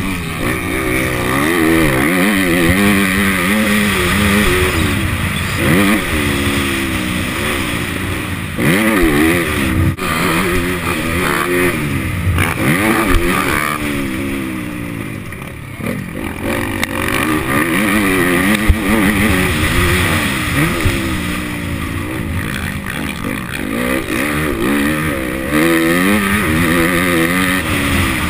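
Motocross bike engine revving hard, its pitch climbing and dropping over and over as the throttle is opened and closed through the gears.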